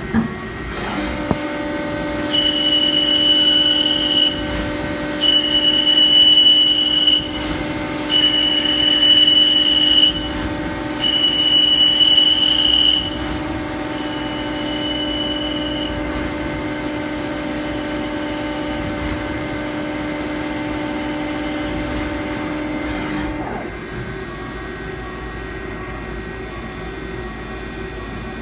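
CNC lathe (DMG Gildemeister CTX 410) running under coolant while single-pointing a 5/8-18 thread. A high whine comes in five stretches of about two seconds, one for each threading pass, the last one fainter. The spindle's steady hum stops about 23 seconds in.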